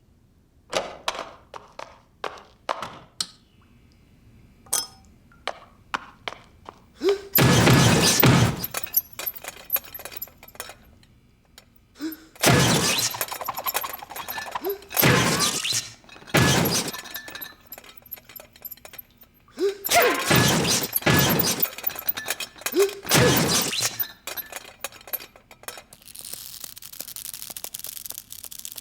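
Glass smashing in a series of loud crashes, after a run of light clinks and knocks. The crashes come in separate bursts, each ringing on briefly.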